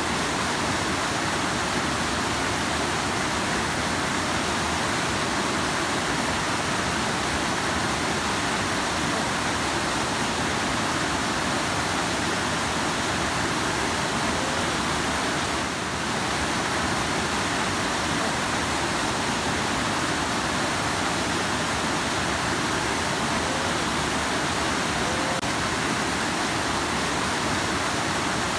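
Rushing river water: a steady, even rush of fast-flowing water, with a slight dip in level about halfway through.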